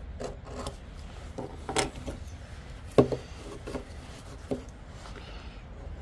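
Small blade of a budget multitool drawn through a small handheld knife sharpener in a few irregular scraping strokes, one sharp loud stroke about three seconds in. The blade is very blunt.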